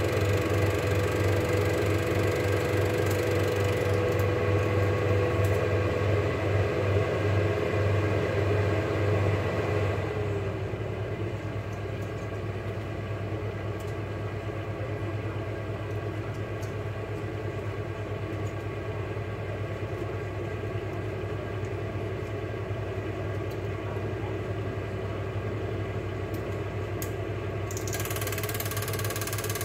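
Cine film projector running with a steady mechanical whir and hum. About ten seconds in, one of its tones glides down and the sound becomes a little quieter.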